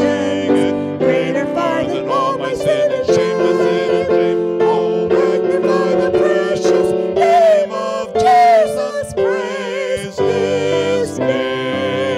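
Worship song: singing with a wavering vibrato over held chords from the accompanying instruments, with a steady beat of sharp strokes.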